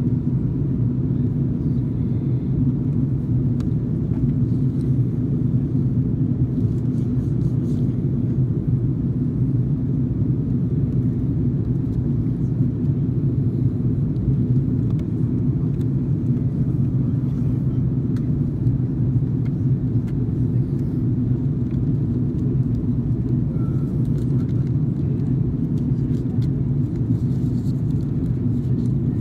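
Steady in-flight cabin noise of an Airbus A330-300: a low, even drone of its Rolls-Royce Trent 700 engines and the airflow over the fuselage, heard from a window seat.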